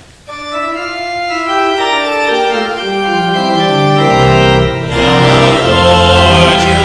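Church organ playing a slow introduction that begins just after the start with held notes and builds into full chords, with a deep pedal bass entering about four seconds in.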